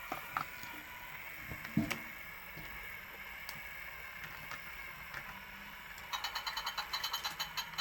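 Plastic Hot Wheels toy track playset handled: a few light plastic knocks and clicks, one a little louder just before two seconds in. From about six seconds in comes a fast, even ratcheting click, about eight clicks a second, as a part of the set is turned.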